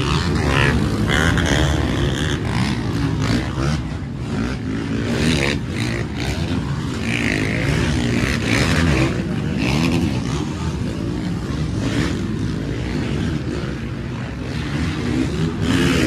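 Motocross motorcycle engines revving up and down over and over, one rise and fall after another.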